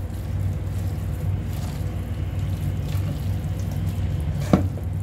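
Soba noodles in peanut sauce being tossed with a spatula in a stainless steel bowl, with soft wet squishing, over a steady low hum. A single sharp tap, the spatula against the metal bowl, comes about four and a half seconds in.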